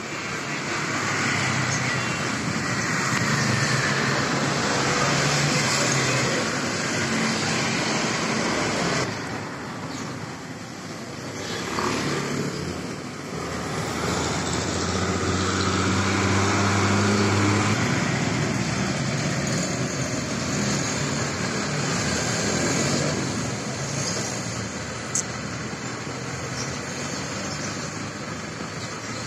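Road traffic going past, its engine noise swelling and fading as vehicles pass, with a short sharp tick about 25 seconds in.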